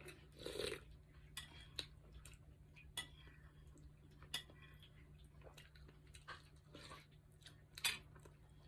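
Quiet eating sounds: a metal spoon clinking and scraping against a ceramic soup bowl in scattered single clicks, with a soft sip of broth about half a second in.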